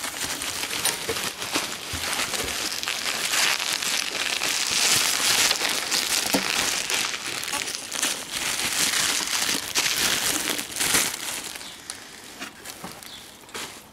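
Packaging crinkling and rustling as it is handled and pulled away by hand to unwrap the tail lights, a busy crackle that thins out near the end.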